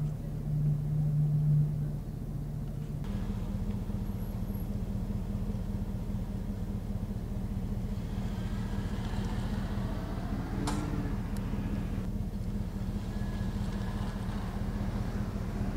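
Steady low hum of an idling vehicle engine, with police vehicles driving slowly past about eight seconds in and again near the end, and one sharp click about eleven seconds in.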